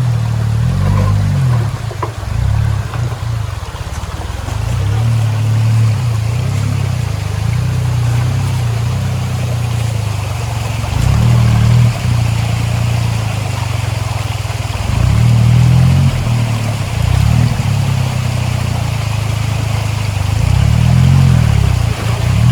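Suzuki Jimny JA11's small three-cylinder turbo engine under load, revved up and let back several times as it crawls over rocks, with a steady rush of water underneath.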